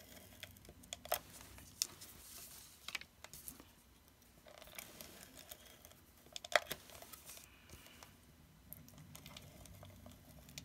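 Tape being run from a handheld tape dispenser and pressed down along the edges of a card: scattered sharp clicks and a few short scratchy stretches.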